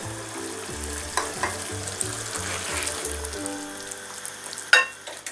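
Hot ragù sizzling in a frying pan as it is ladled and tipped out into a bowl of pasta, with a few light clicks of the ladle. A sharp, ringing clink sounds near the end.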